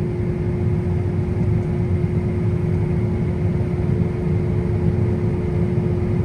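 A heavy farm vehicle's engine running steadily: an even low rumble with a constant hum over it.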